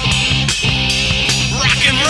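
Late-1970s rock trio playing: electric guitar, bass guitar and drums, from a restored analogue master tape. A note slides up and down in pitch near the end.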